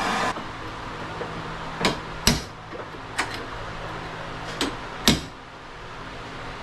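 Hammer striking a steel punch five times at uneven intervals, driving a heated wheel bearing race out of a UTV's rear hub. A torch's hiss cuts off right at the start.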